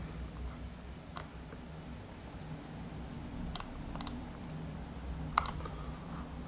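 Light clicks and taps from handling the phone, about five of them spread out, over a steady low hum.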